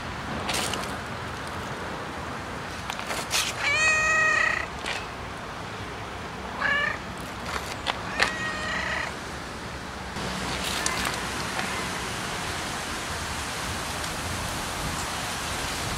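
A cat meowing three times: a long, loud meow about four seconds in, then a short one near seven seconds and another a little over a second later.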